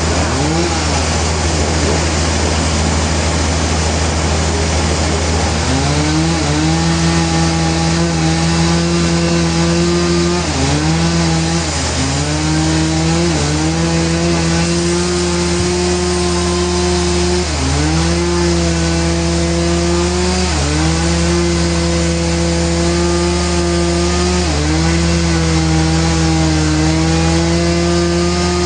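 Sawmill saw cutting a hardwood log over a steady low machine hum. From about six seconds in, a whine rises whose pitch sags and recovers every one to three seconds as the blade loads up in the cut.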